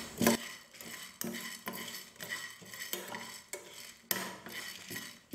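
Spatula scraping and tapping around a small nonstick pan in irregular strokes, stirring chana dal, urad dal and dried red chillies as they dry-roast.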